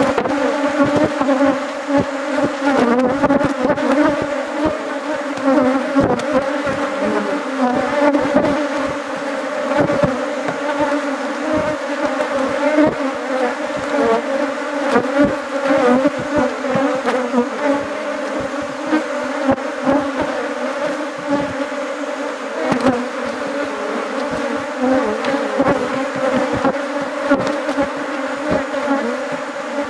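Honeybees buzzing around an opened hive: a dense, steady hum of many bees, with frequent small knocks and clicks over it.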